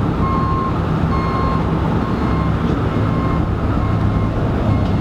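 A heavy vehicle's backup alarm sounding repeated high beeps, each about half a second long and roughly one a second, over the steady low rumble of running engines.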